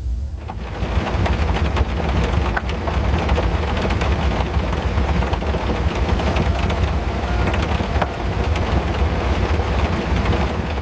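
Heavy rain falling, many drops pattering, over a continuous low rumble of thunder.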